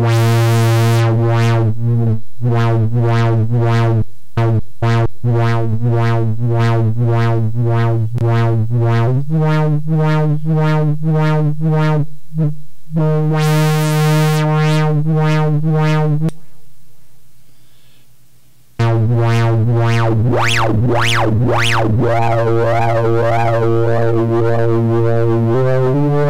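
Moog Werkstatt-01 analog synthesizer holding a low note, its tone brightening and dulling in a steady pulse. The pitch steps up about a third of the way in. The note fades out for a couple of seconds past the middle, then comes back with fast rising-and-falling sweeps.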